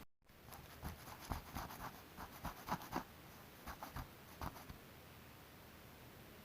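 Faint, irregular scratching and light ticks of a spreader working body filler putty over a car body panel, stopping about four and a half seconds in.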